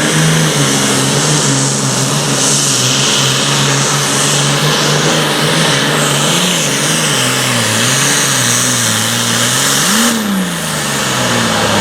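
A super farm class pulling tractor's diesel engine running flat out as it drags the weight-transfer sled. The engine note sags and wavers as the sled load builds, rises sharply near the end, then falls away as the run finishes.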